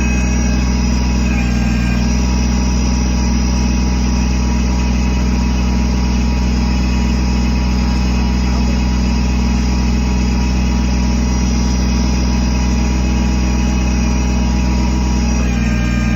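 Kubota BX23S backhoe's small three-cylinder diesel engine running steadily at a constant speed, loud and close, with a slight change in its tone near the start and again near the end.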